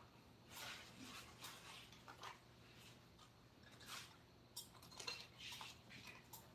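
Faint, irregular light clicks and rustles, like small objects being handled, scattered through over a low steady hum.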